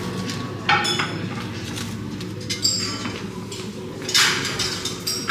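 Tableware clinking at a buffet counter: metal serving tongs, plates and glassware knocking, with a few sharp ringing clinks, the loudest about four seconds in, over a steady low room hum.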